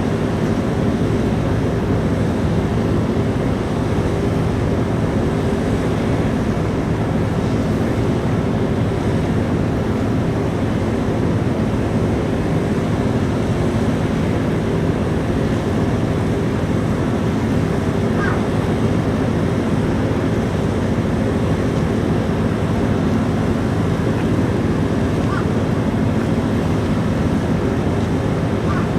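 Steady drone of the ferry Orange 7's engines and machinery, with a low hum of several tones under a wash of wind and water noise.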